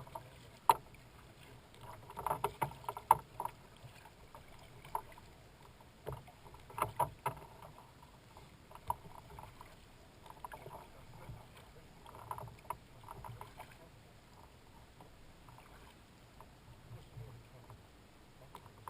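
Kayak paddle dipping and splashing in the water, with drips and sharp little clicks coming in clusters every few seconds.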